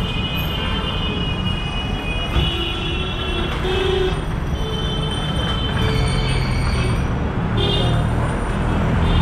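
Busy street traffic: a steady rumble of engines with several high-pitched tones coming and going over it.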